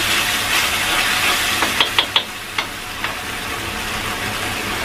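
Tomato-based sauce sizzling and frying in a metal wok as a wooden spatula stirs it, with a quick run of sharp taps of the spatula against the wok about two seconds in.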